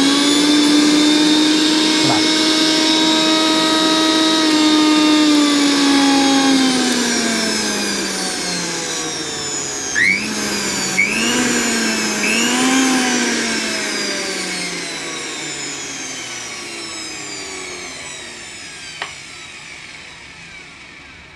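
Sujatha mixer grinder's motor, fitted with new carbon brushes, running at speed with a steady whine, then slowing as its pitch falls. About ten seconds in, three quick bursts of power push it back up before it winds down to a stop. A single click comes near the end. The motor turning again shows the brush replacement has fixed the mixer.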